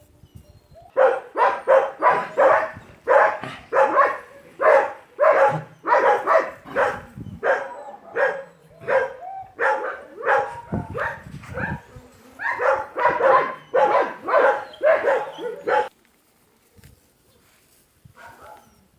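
Dog barking over and over, about two sharp barks a second for some fifteen seconds, stopping briefly near the end before starting again.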